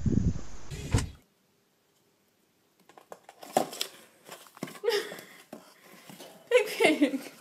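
A loud rumbling outdoor noise that cuts off about a second in. After a short silence comes a cardboard box scraping and knocking on a tile floor as a guinea pig wearing it walks along, with a person's voice over it.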